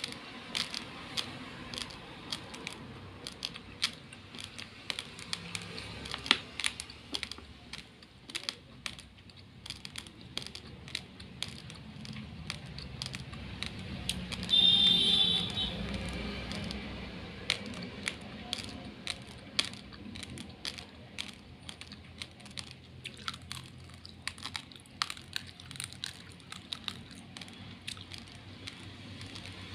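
Hard raw uncooked rice grains being chewed and crunched close to the microphone: many sharp, irregular cracks. About halfway through, a louder, brief high-pitched squeal rings for about a second.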